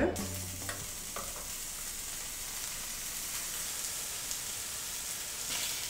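Bacon strips sizzling in a hot frying pan, frying in their own fat without added oil: a steady, high hiss. A couple of light clicks come about a second in.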